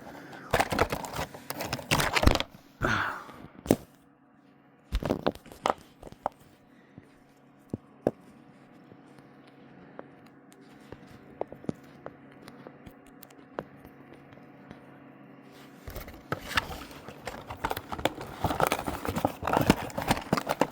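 Packaging being crinkled and torn in a run of crackly rustling, dying down after a few seconds to scattered clicks and handling sounds, then crinkling again near the end.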